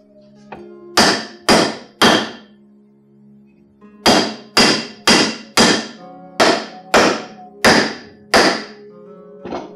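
A hammer striking the top end of a wooden axe handle, driving the handle deeper into a double-bit axe head to seat it. Three sharp blows, a pause, then eight more at about two a second and one lighter tap near the end.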